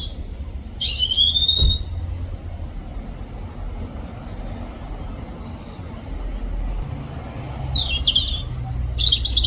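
European robin singing: short, high, warbling phrases in the first two seconds and again near the end, with a pause between. A steady low traffic rumble runs underneath.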